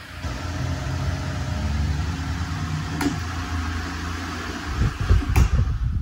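Cadence desk fan running with a swapped-in propeller: a steady hum and rush of air. A sharp click about three seconds in and another near the end, with some low thumping between.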